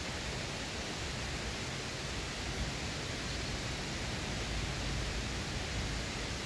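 Steady rushing of stream water, an even hiss that does not change.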